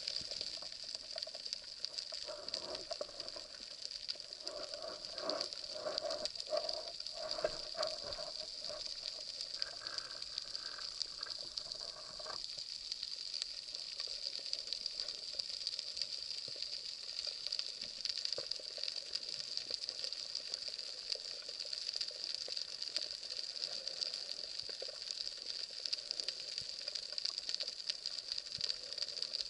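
Steady underwater crackling hiss of the sea, picked up by an action camera in its waterproof housing. A faint pulsing mid-pitched sound runs through the first part and cuts off suddenly a little before halfway.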